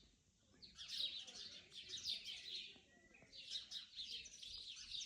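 Songbirds singing: two long runs of rapid high chirping and twittering, the first starting about a second in and the second a little after three seconds.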